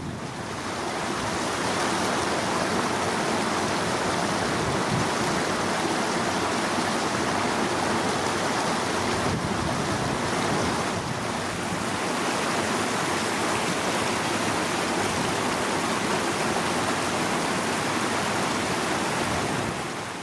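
Steady rushing of a rocky hill stream running over stones, an even water noise with no let-up.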